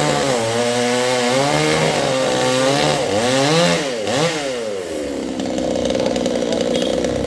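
Chainsaw engine revving up and down several times, then dropping back to a steady idle about five seconds in.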